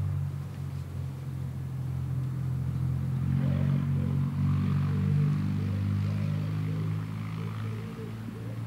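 A steady low hum, with a pigeon cooing repeatedly from about three and a half seconds in.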